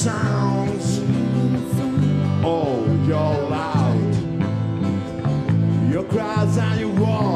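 Live band playing a song: a man sings the melody over electric bass and acoustic guitar.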